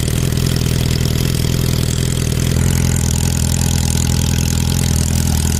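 Suzuki Bandit 650N's inline-four engine idling steadily through an aftermarket exhaust while its baffle insert is being pulled out. About two and a half seconds in, the low exhaust note grows deeper and fuller as the pipe opens up to a straight-through exhaust.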